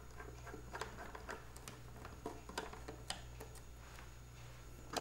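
Precision Torx T5 screwdriver working the tiny screws of an RTX 3080 Founders Edition graphics card: faint, scattered small clicks and ticks over a low steady hum.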